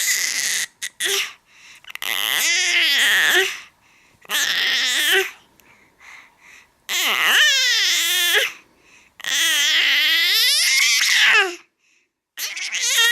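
A baby's loud, drawn-out squealing vocalizations, about six in a row with short pauses between, each sliding up and down in pitch.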